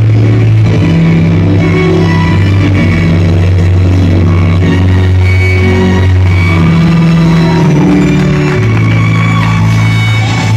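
Loud music with long held bass notes that shift every couple of seconds under sustained higher tones.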